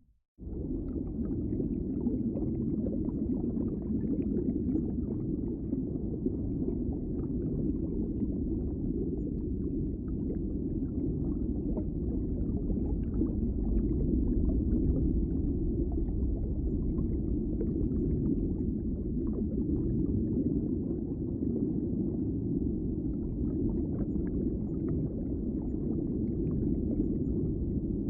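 Underwater ambience: a steady, muffled low rumble with faint scattered bubbling ticks. It starts a moment in, after a brief gap.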